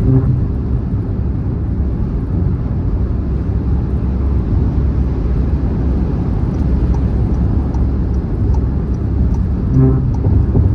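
Car driving at speed on a motorway: steady low tyre-and-road rumble. A brief buzzy thump comes right at the start and again near the end.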